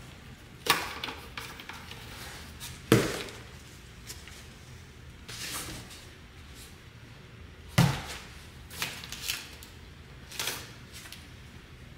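Cardboard boxes being handled: several dull thumps and knocks of cardboard, the sharpest about three seconds in and just before eight seconds, with lighter taps and scrapes between.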